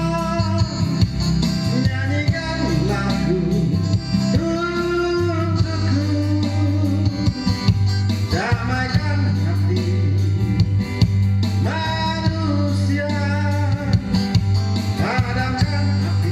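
Indonesian pop ballad playing: a band with guitar and a melodic lead line over a steady bass, with sliding notes rising several times.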